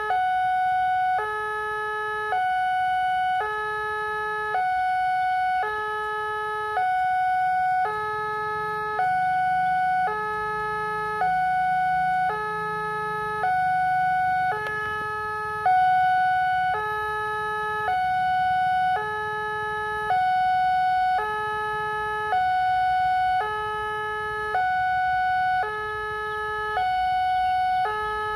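Railway level-crossing warning alarm of the Indonesian type sounding with the barriers down: an electronic two-tone hee-haw that switches pitch about once a second and repeats evenly, warning that a train is approaching.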